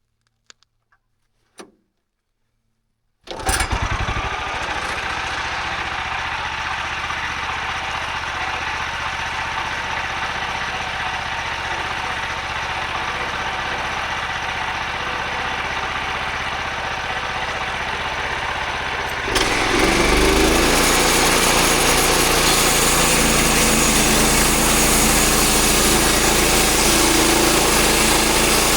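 Portable bandsaw sawmill's small gasoline engine starting up suddenly a few seconds in, after a few faint clicks, and running steadily. It runs louder from about two-thirds of the way through.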